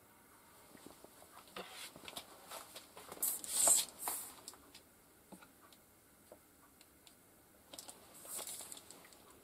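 Steel tape measure being drawn out and handled over a cutting mat: light clicks with a short scraping rasp of the blade about three to four seconds in and a smaller one near the end.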